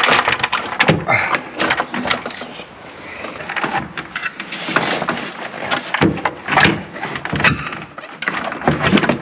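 Clunks, knocks and scraping of a car's intake manifold being worked loose and lifted out of the engine bay, in short irregular bursts.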